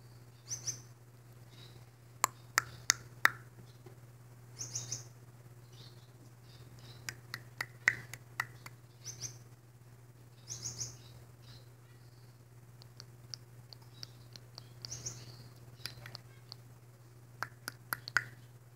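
Blue-naped mousebird chattering: sharp clicks and short high chirps come scattered and irregular, with quick runs of clicks about two to three seconds in, around eight seconds and near the end.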